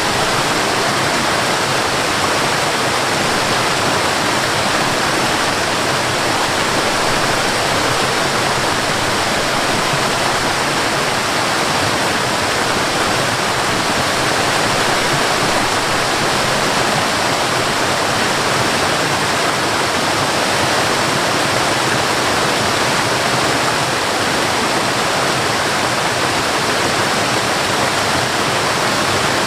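Waterfall pouring into a river: a loud, steady, unbroken rush of water.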